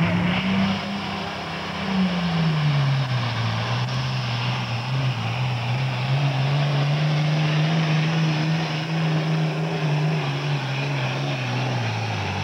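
Super Farm class pulling tractor's turbocharged diesel engine running hard under load down the pulling track. Its pitch climbs briefly, then drops about two seconds in as the engine bogs under the sled's weight, works back up and holds, and sags again near the end.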